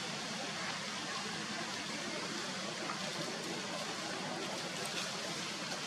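Steady, even outdoor background hiss with a few faint ticks.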